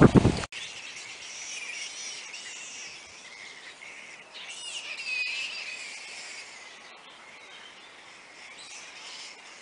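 A roosting flying-fox (fruit bat) colony chattering with high, wavering squeaks and screeches, busiest about five seconds in. A loud rushing noise cuts off abruptly about half a second in.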